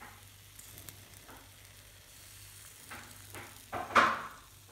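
Mini pancakes of flour-and-milk batter sizzling faintly in a hot frying pan. About four seconds in comes a brief, louder rush of noise as a spoonful of batter goes to the pan.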